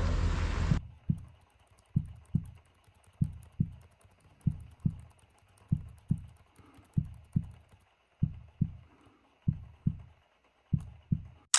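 Slow heartbeat: paired lub-dub thumps, one pair about every 1.3 seconds, as an edited-in sound effect. A loud rushing noise cuts off suddenly about a second in, and a sharp click comes near the end.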